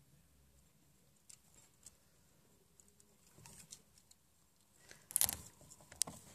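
Mostly quiet, with a few faint small clicks; about five seconds in comes a louder rustling scrape, followed by a few sharp clicks near the end.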